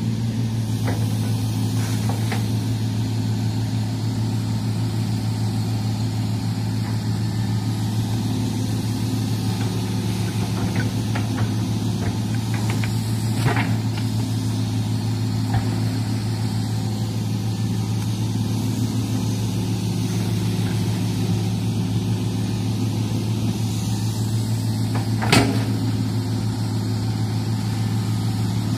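Hitachi hydraulic excavator's diesel engine running steadily under load as the machine digs, with a few short sharp knocks, the loudest about 25 seconds in.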